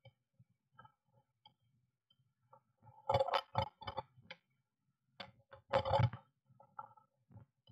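Blue tit scrabbling about inside a wooden nest box: sharp scratchy clicks of claws on the wood and rustling nest material, in two louder flurries, about three seconds in and again about six seconds in, with faint ticks between.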